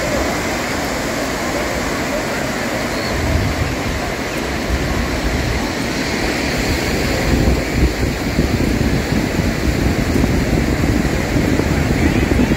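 Small waves breaking and washing on a sandy beach, with the indistinct chatter of a crowd of beachgoers. Wind buffets the microphone, more strongly in the second half.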